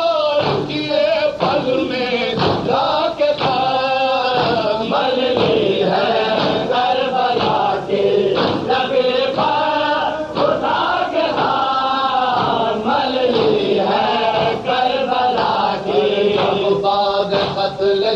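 Men's voices chanting an Urdu noha, a Shia lament, together in unison, with sharp regular beats keeping time under the voices.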